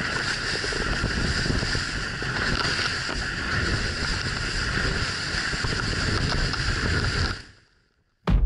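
Motorboat running fast over the sea, with wind and rushing water loud on a camera fixed to the hull. It fades out about seven seconds in, and a sharp thump comes near the end.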